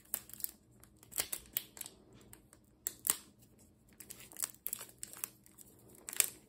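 Plastic wrapping around a stack of trading cards crinkling in irregular short crackles as fingers pick at it, trying to tear it open.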